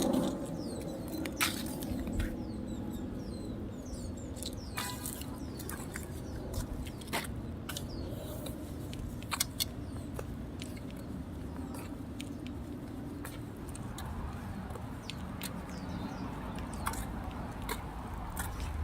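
Outdoor ambience: a steady low hum with faint bird chirps in the first few seconds and scattered sharp clicks throughout.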